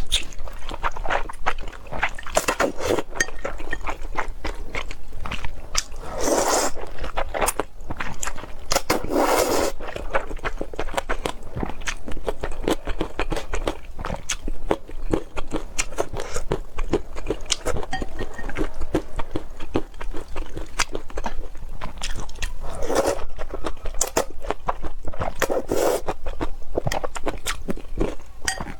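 Close-miked eating sounds: a person chewing and biting food, with dense crunchy, wet clicks and a few longer swells of noise.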